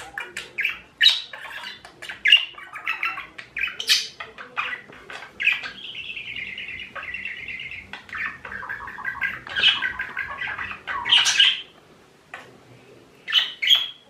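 Budgerigar chatter: a fast stream of short chirps and warbling, with louder squawks every second or two and a brief lull near the end.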